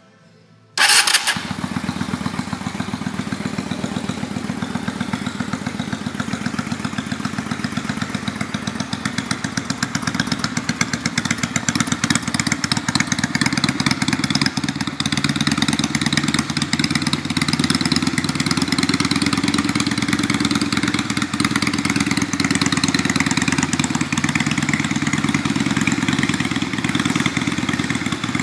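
Honda Shadow VT600's V-twin engine starting about a second in through short heat-wrapped exhaust pipes, catching at once and then idling steadily with an even pulse.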